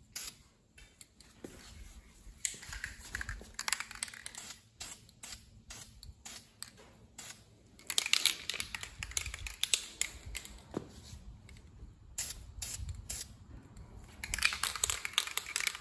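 Aerosol can of filler primer spraying in three hissing bursts of a second or two each, a few seconds apart, as coats are laid on, with light clicks and taps in between.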